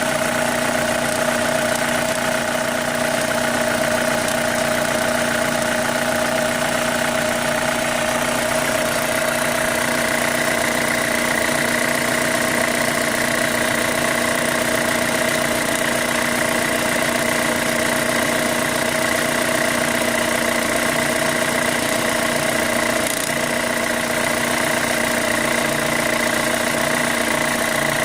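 2005 Chevy Cobalt's 2.2-litre four-cylinder engine idling steadily, with a noise in the engine that the owner suspects is a lifter. A steady high tone in it grows stronger about ten seconds in.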